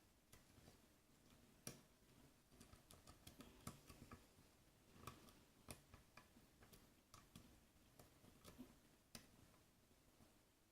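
Faint, irregular clicks and scrapes of a lock pick working the pins of a pin-tumbler challenge lock held under light tension. The picker suspects serrated pins, which click as they are lifted.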